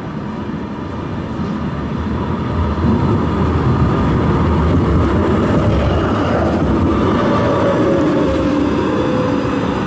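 Electric tram approaching and passing close by: a rumble of wheels on rail that grows louder over the first few seconds. Under it runs a motor whine that falls slightly in pitch as the tram goes past.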